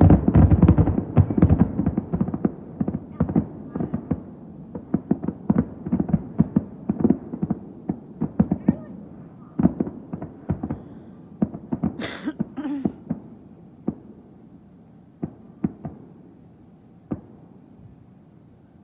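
Fireworks finale: a rapid volley of bangs, densest and loudest at first, thinning out to scattered single booms by the end.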